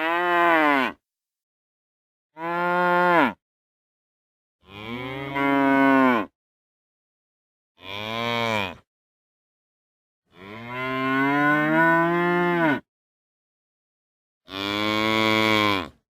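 Cows mooing: six separate moos, each about one to two and a half seconds long, their pitch falling at the end. Complete silence lies between them.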